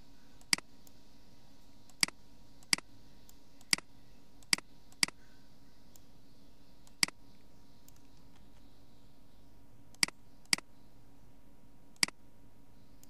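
Computer mouse clicking, about ten sharp clicks at irregular intervals, some in quick pairs, as cells are selected, copied and pasted in a spreadsheet. A faint steady low hum runs underneath.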